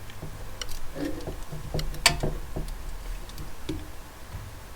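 Scattered light clicks and taps from handling a cordless impact wrench and a measuring tool on a work surface, with one sharper click about two seconds in.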